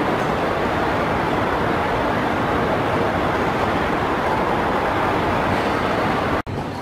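Steady, loud rushing drone of a moving escalator in a large airport terminal hall. It cuts off abruptly near the end, giving way to quieter hall sound.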